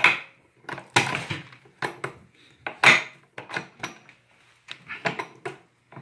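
Hand-lever button-badge press clinking and clunking, a series of sharp irregular metal knocks as the dies are shifted and the lever is worked to press the photograph and clear cover sheet into the magnet's faceplate.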